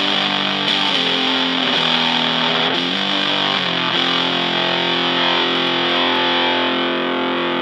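Distorted electric guitar: a Fender Stratocaster played through a PineTop Distortion pedal into a Fender Blues Junior amp. A few chords change about once a second, then a final chord is held and left to ring for the last few seconds.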